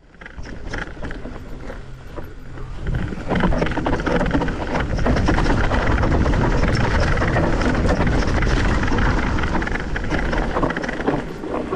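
Mountain bike riding down a rough dirt and gravel trail: tyres rolling over the ground with frequent clattering knocks and rattles from the bike. It grows louder about three seconds in.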